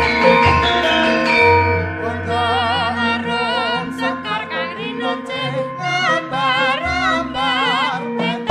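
Background music: sustained instrumental chords, then from about two seconds in a high melody sung with heavy vibrato over held bass notes.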